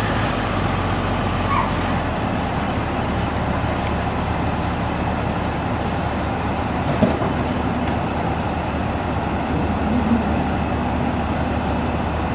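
Steady low rumble of an idling heavy vehicle engine, with one faint click about seven seconds in.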